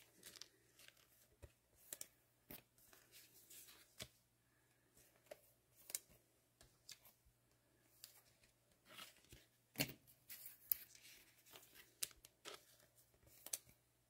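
Faint, scattered rustles and clicks of trading cards being handled, the loudest about ten seconds in.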